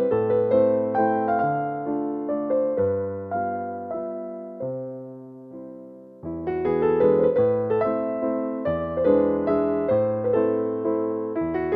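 Background piano music: a soft melody of notes struck and left to fade, thinning out and dying away before it starts again more fully about six seconds in.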